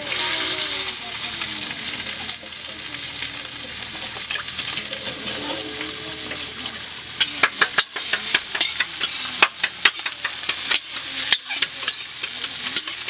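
Chopped vegetables sizzling in hot oil in a pan, the sizzle starting loudly as they go in. From about seven seconds in, a spatula stirs them with quick scraping clacks against the pan.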